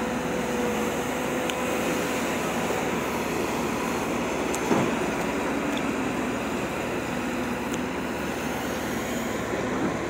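JCB tracked excavator's diesel engine running steadily while it works in water, with a single knock about halfway through.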